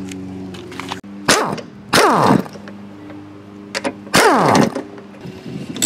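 Power impact wrench spinning off the 14 mm top strut-mount bolts: three short bursts of about half a second each, the motor's pitch falling as it spins down after each one.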